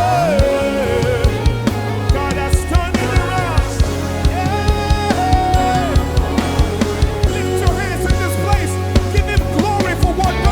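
Live worship band playing an upbeat gospel song, with a steady drum-kit beat, bass and a melodic lead line.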